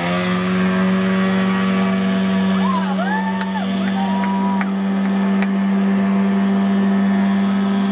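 Towing motorboat's engine at full throttle, finishing its rev-up at the start and then holding a steady drone as it pulls a water-skier up out of the water.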